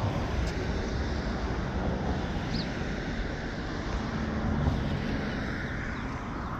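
Steady noise of road traffic: a low rumble of car engines and tyre hiss.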